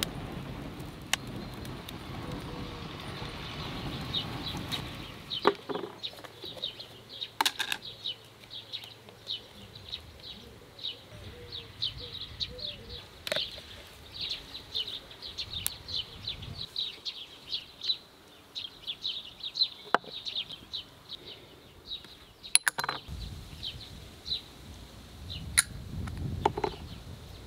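Wood fire burning with a low rumble for the first few seconds. Then a bird chirps rapidly over and over, with occasional sharp clinks and knocks of a glass bowl and utensils on a wooden table.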